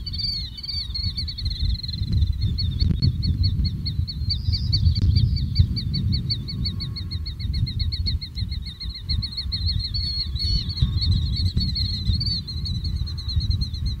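Killdeer calling in a long, rapid series of high, repeated notes. A low rumble runs underneath.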